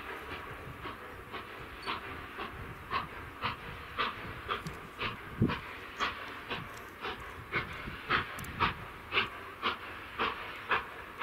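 Steam locomotive chuffing at a steady pace, about two exhaust beats a second, each beat a short hiss of steam over a low running rumble.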